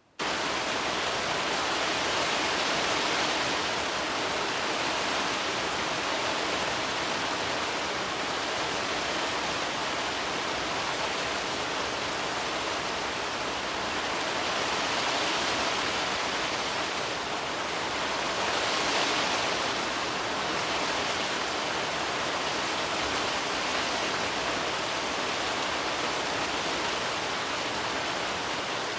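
Wood bonfire burning, a steady dense hiss and crackle with gentle swells.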